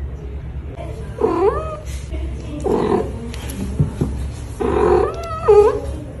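A cat meowing twice, about a second in and again near the end, each call bending up and down in pitch, the second one longer. A steady low hum runs underneath.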